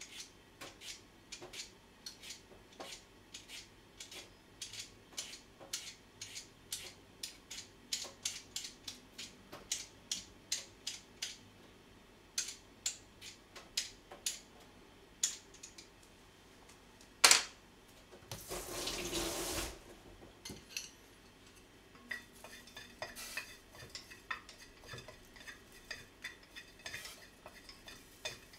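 Chef's knife julienning a carrot on a plastic cutting board: steady knife knocks about three a second. A single loud knock comes about two-thirds of the way through, followed by a short rush of tap water. Near the end, lighter clicks of chopsticks stirring in a metal pot.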